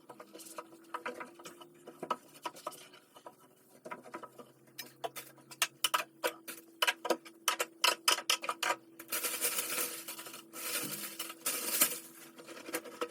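Handling sounds: quick light taps and clicks that come thicker after about five seconds, then two stretches of rustling near the end, over a faint steady hum.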